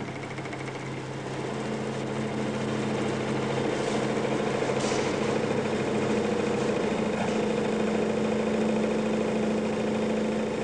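Motor-driven vibration test rig running, shaking a bolted joint at about 800 rpm with a steady mechanical hum. The hum shifts higher and grows louder over the first couple of seconds as the rig comes up to speed, then holds and eases off near the end. The vibration is working a plain nut loose on its bolt.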